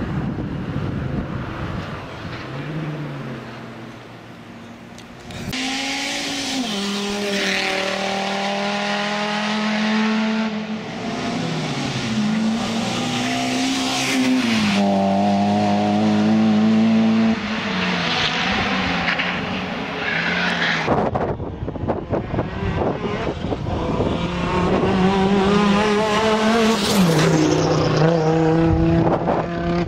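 Audi Quattro rally car's turbocharged five-cylinder engine at full throttle on a closed stage, the revs climbing and dropping sharply through gear changes as the car passes. The sound breaks off abruptly twice where separate passes are joined.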